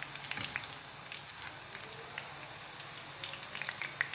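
Boondi, small drops of gram-flour batter, deep-frying in hot oil in a kadai: a steady sizzle with many small crackles.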